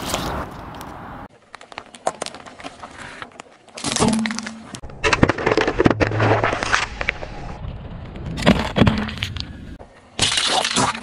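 A car tyre rolling over objects on asphalt and crushing them, heard as a string of short, abruptly cut clips of cracking, crackling and popping. In one of them a drink carton is squashed and squirts, and in another an aluminium soda can bursts and sprays.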